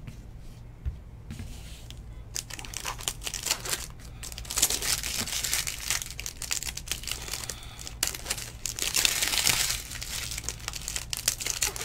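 Foil wrapper of a Bowman baseball card pack crinkling and tearing as it is opened by hand, starting a couple of seconds in and going on in irregular crackling bursts.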